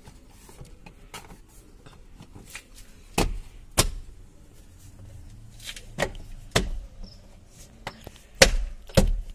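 Plastic door sill trim of a Hyundai Verna being pressed and knocked into place by hand. Six sharp knocks come in three pairs about half a second apart, starting about three seconds in; the loudest pair is near the end.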